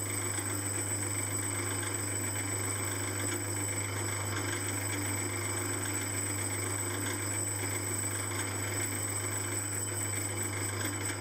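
Small metal lathe running steadily with a flywheel spinning in the chuck while a turning tool takes a light finishing skim across it, the last pass that clears the etch marks from its faces. The hum stays even throughout.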